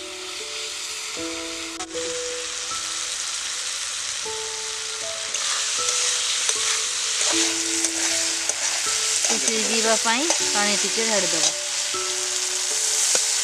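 Chicken liver and masala sizzling as it fries in a kadai, stirred with a metal spatula; the sizzle grows louder about five seconds in. A melody plays along with it.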